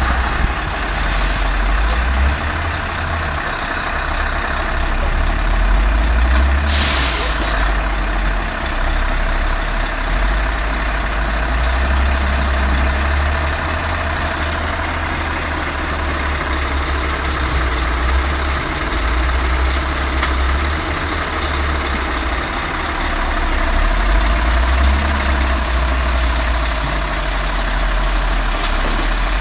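Scania tipper truck's diesel engine running with a deep, steady rumble. A sharp air-brake hiss comes about seven seconds in, with fainter hisses near the start and about twenty seconds in.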